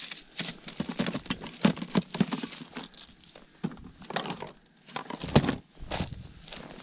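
Irregular crunching and knocking on snowy lake ice, with a quieter spell near the middle and the loudest knock about five and a half seconds in.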